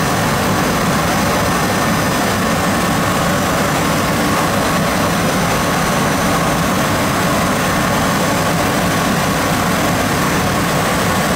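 Hwacheon Hi-M G1 graphite vertical machining center milling graphite pins, its end mill spinning at 12,000 rpm. The running noise is steady and loud throughout.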